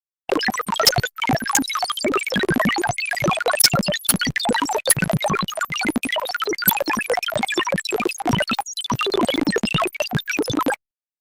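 Synthesized robot sound effect: a rapid, chaotic stream of electronic beeps, bleeps and chirps at jumping pitches, mixed with clicks. It has a brief break about a second in and cuts off suddenly near the end.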